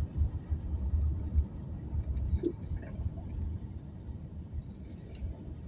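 Low, steady rumble of a car driving, engine and tyres on the road, heavier in the first couple of seconds and then easing off.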